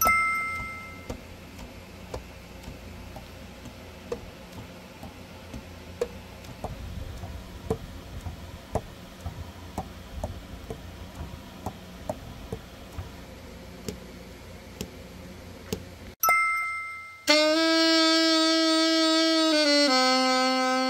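Saxophone keys pressed and let go again and again, the pads tapping shut on the tone holes every second or so over a low hum, while the horn is leak-tested after a full overhaul. A chime sounds at the start and again about 16 seconds in, then the Selmer Super Action 80 Series II alto saxophone is played in long held notes, stepping down in pitch near the end.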